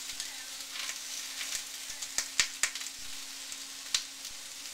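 Chopped onion and peppers sizzling gently in a pot while being sweated with spices, with a few sharp clicks of utensils against the pot: a quick cluster about two seconds in and another near four seconds. A faint steady hum sits underneath.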